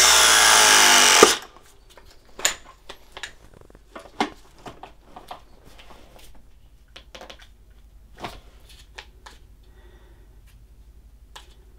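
Ridgid battery-powered ProPress crimping tool running its press cycle, the motor's pitch shifting slowly as the jaws close, then stopping with a sharp click a little over a second in. After that come scattered clicks and knocks of the tool and fitting being handled.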